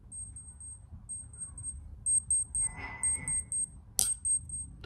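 Digital clinical thermometer sounding its reading-done alarm: quick high-pitched beeps in groups of four or five, the groups repeating about once a second, showing the fever measurement is complete. A sharp click about four seconds in, with some handling rustle just before it.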